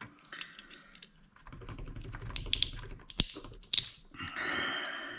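Small plastic clicks and snaps as the key of a vintage reed-switch keyboard is worked open by hand, with one sharp snap about three seconds in, then a second or so of scraping.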